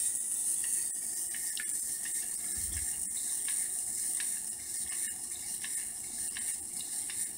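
Small N20 gearmotor (6 V, 100 RPM) running in a 3D-printed pin-walker robot toy, driving its plastic gears and crank. It makes a steady high whine with light clicks at an even pace, about every half second.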